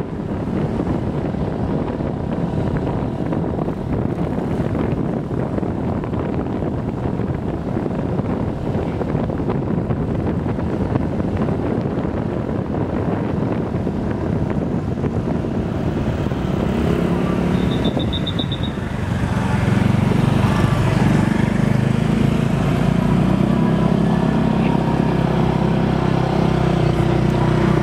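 Motorbike ride with wind rushing over the microphone and the engine running. About two-thirds of the way through the engine note grows louder and clearer, and just before that there is a brief high-pitched beep.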